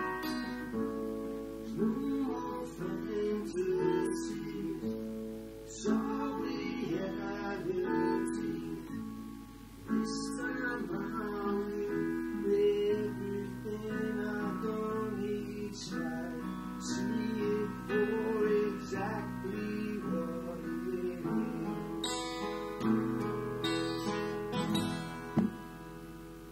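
Acoustic guitar strummed together with a Roland FP-50 digital piano playing chords, with a man singing at times. The music fades out near the end as the song finishes.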